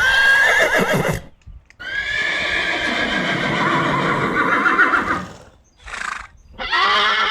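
A horse neighing: a short whinny, then a long, wavering neigh of about three and a half seconds. A brief breathy sound follows, then another neigh begins near the end.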